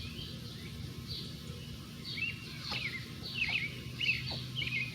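Birds chirping: a run of short, quick chirps that glide down in pitch, bunched together from about two seconds in, over a steady low background noise.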